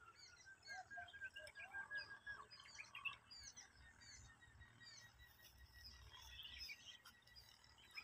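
Faint outdoor birdsong: several small birds chirping and whistling, with a quick run of repeated notes in the first couple of seconds.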